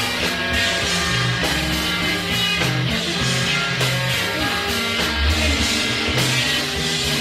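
Instrumental stretch of a rock song: guitar over a changing bass line, with no singing.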